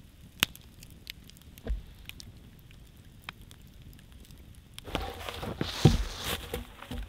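Wood campfire crackling with scattered sharp pops. About five seconds in, louder rustling and dull thumps of movement close by begin.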